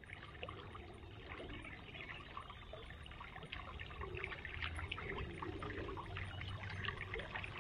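Water trickling and splashing steadily down a concrete spillway into a creek: a light flow of rain runoff, a little louder in the second half.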